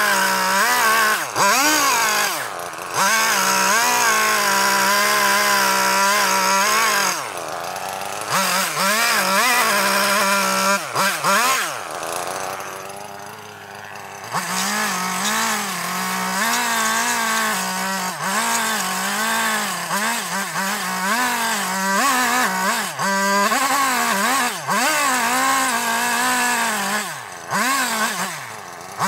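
Chainsaw carving into a log, its engine pitch rising and falling constantly as the throttle is worked through short cuts. It eases off about seven seconds in and drops back to a low idle for a couple of seconds around the middle before revving into the wood again.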